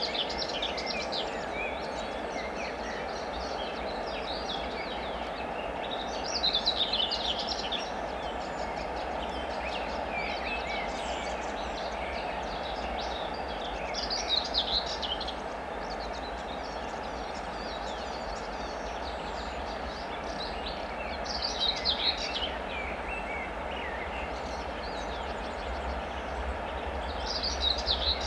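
A songbird repeats a short song phrase about every seven seconds over a steady low rumble from the distant 2M62UM diesel locomotive as it approaches.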